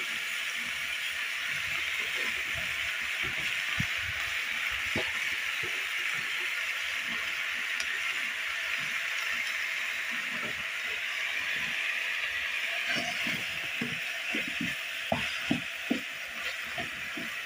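Shredded cabbage and tomato sizzling in a metal pot, with a wooden spoon knocking and scraping against the pot as it is stirred. The knocks come thicker and louder in the last few seconds.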